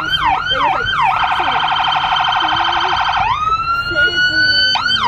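Fire truck's electronic siren cycling through its tones: a fast yelp, then a rapid pulsing trill for about two seconds, then a slow rising wail, switching back to the yelp near the end.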